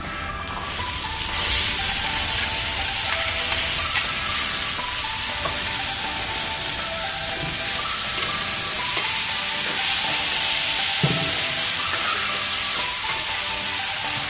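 Diced raw potatoes tipped into hot oil in an aluminium wok with sautéed garlic and onion, sizzling as they land about a second in, then frying with a steady sizzle while a metal spatula stirs them, with an occasional knock on the pan.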